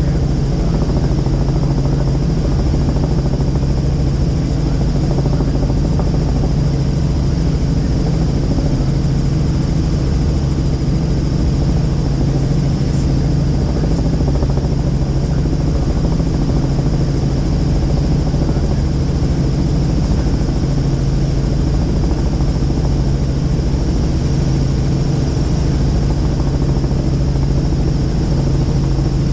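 Helicopter in steady flight: the engine and rotor make a constant low drone, with a steady high whine above it.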